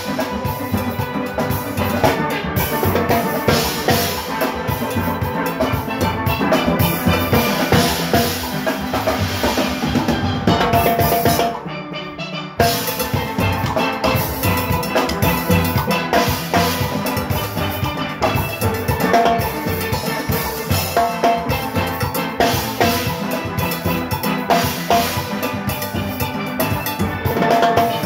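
Steel orchestra playing live: steelpans over an engine-room rhythm section of drum kit, timbales and cymbals. Near the middle the percussion cuts out for about a second in a short break, then comes back in.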